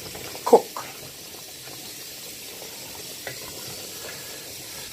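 Pot of oxtail stew simmering with a steady hiss of bubbling and steam while a wooden spoon stirs the meat in the steel pot. A brief louder sound comes about half a second in.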